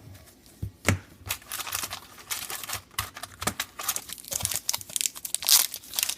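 Wrapper of a Topps Star Wars: The Last Jedi trading card pack being torn open and crinkled in the hands: an irregular run of crackles and sharp ticks, louder near the end.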